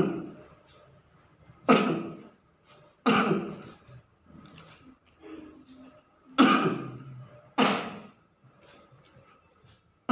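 A person's short, loud vocal outbursts, five of them at uneven gaps, each starting abruptly and dying away within about a second, with faint small sounds in between.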